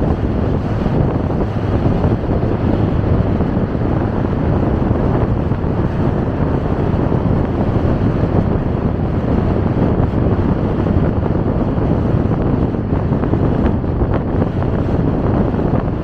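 Steady wind buffeting the microphone on a moving motorcycle, a loud, even rumble with no distinct events.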